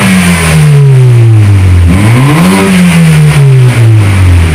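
BMW F30's turbocharged engine revved through an aftermarket stainless exhaust with 2.5-inch piping and twin left and right outlets. Repeated blips about every two and a half seconds, each climbing quickly and falling away slowly, with another starting right at the end.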